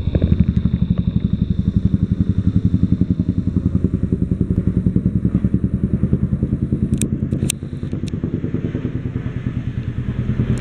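Boeing CH-47 Chinook tandem-rotor helicopter flying overhead: its rotor blades beat in a rapid, steady rhythm over a deep engine drone. The sound drops a little about seven and a half seconds in as it moves away, with a couple of sharp clicks just before.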